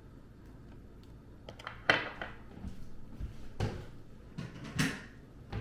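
Kitchen handling sounds: three knocks and clatters of things being set down or a cupboard being worked, the loudest about two seconds in.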